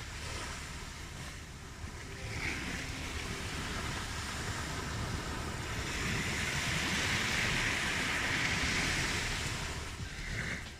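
Ocean surf: waves washing in as a steady rushing hiss, swelling louder past the middle and easing off near the end.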